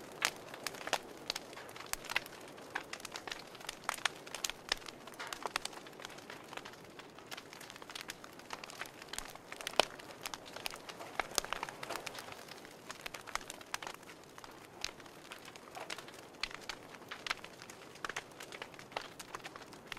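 Wood fire crackling in a wood stove: irregular sharp pops and snaps over a soft, steady hiss.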